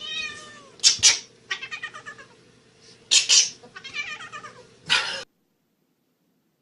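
Domestic cat caterwauling: a falling yowl, then pulsing cries broken by short harsh bursts. It cuts off suddenly about five seconds in.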